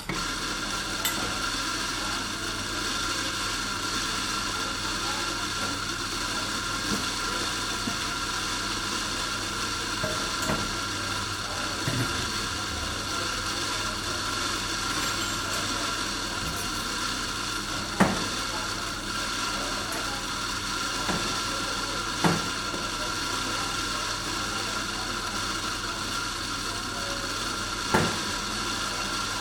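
Café ambience: a steady hiss and hum of kitchen and coffee machinery with a thin steady tone, broken now and then by sharp clinks and knocks of dishes and cutlery, the loudest about 18 and 22 seconds in and again near the end.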